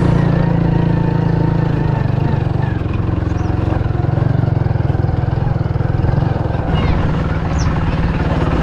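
Small motorcycle engine running steadily close by.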